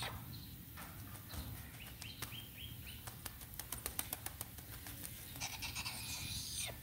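A chattering lory bathing in water from a garden hose: water pattering and splashing on the tiles as the bird flutters its wet wings, with a short run of about five high chirps about two seconds in.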